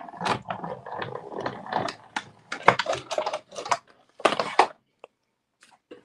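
Hand-cranked Stampin' Up! die-cutting and embossing machine being turned, with base plates and an embossing folder passing through the rollers. It makes a run of irregular clicks and knocks that thins out about five seconds in.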